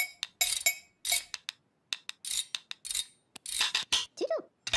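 Spoons and kitchen utensils struck against crockery and pans in a quick, uneven clatter of ringing clinks, about three strikes a second. Near the end comes a short warbling tone that dips and rises.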